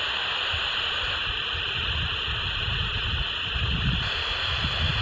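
Steady static hiss from the speaker of a Shira WT106-449 49 MHz walkie-talkie, its receiver picking up no signal from the other set at the edge of range. Wind rumbles on the microphone underneath.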